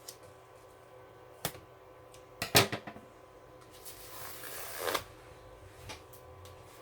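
Tape and plastic wrapper being pulled off a rolled canvas: a click, then a loud sharp snap about two and a half seconds in, and a rustling, tearing noise that builds for about a second and cuts off suddenly.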